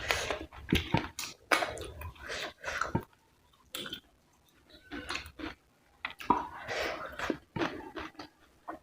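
Close-miked chewing and mouth sounds of someone eating rice with curry, in irregular bursts with short pauses.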